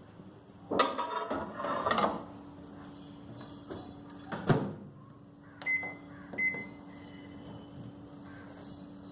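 Microwave oven being loaded and started: a clatter as the bowl goes in, the door shutting with a sharp click, then two keypad beeps, over a steady low hum.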